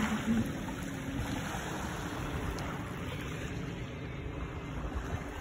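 Sea water lapping and sloshing close by, a steady wash with no single splash standing out.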